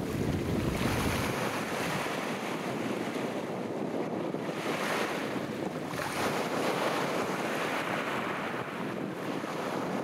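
Sea waves breaking and washing on the shore, swelling every few seconds, with wind buffeting the microphone, a low rumble in the first second or so.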